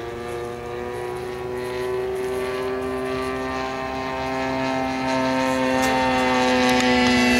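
Engine and propeller of a flying scale model Republic P-47 Thunderbolt: a steady tone that drifts slowly down in pitch and grows louder toward the end as the plane comes nearer.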